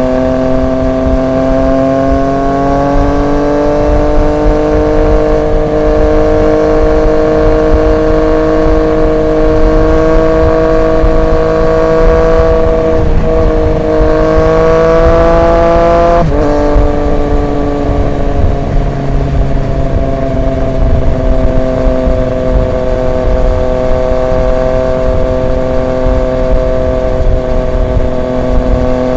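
Triumph Street Triple 765 RX's three-cylinder engine through an SC Project S1 exhaust, running at speed. Its pitch climbs slowly over the first few seconds, dips briefly about 13 seconds in, climbs again, then drops sharply about 16 seconds in and holds steady.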